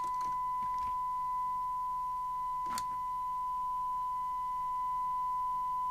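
Magpie Autoscan 5000 FM CB radio's loudspeaker giving out a steady test tone: the receiver demodulating a tone-modulated signal from a signal generator set to S9 level. One sharp click a little under three seconds in.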